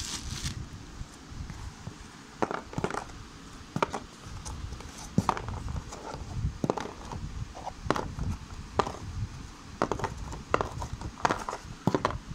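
A dozen or so irregular hollow knocks and taps of hands and small objects against a cardboard shoebox.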